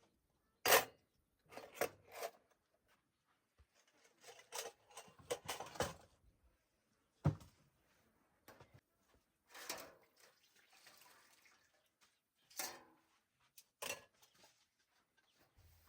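Scattered knocks and clatters from kitchen things being handled during cooking preparation, with a short soft hiss about ten seconds in.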